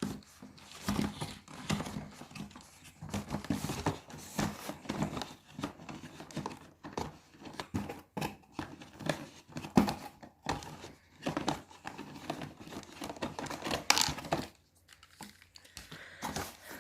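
Toy packaging being crinkled and torn open by hand, in irregular rustling bursts.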